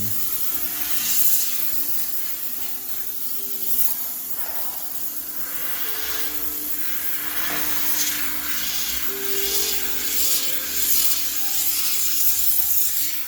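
High-pressure steam cleaner hissing in repeated spurts as it sprays a washing machine, over soft background music.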